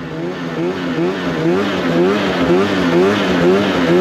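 2019 Polaris RMK 600 snowmobile's two-stroke twin engine running under throttle. Its pitch rises and falls about twice a second, and it grows louder over the first second or so.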